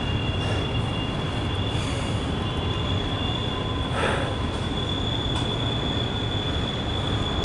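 Norfolk Southern double-stack intermodal freight train rolling past, a steady low rumble of the cars with a thin, steady high-pitched wheel squeal. There is a brief sharper burst about four seconds in.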